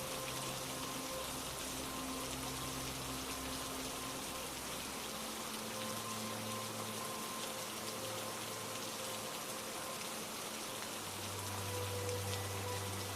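Steady rain falling, with soft ambient music of long-held low notes underneath that moves to new notes about five and eleven seconds in.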